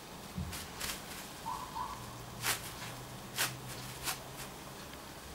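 Plastic cling film crinkling in a few short, scattered crackles as hands press and smooth it down over a cake in a glass bowl.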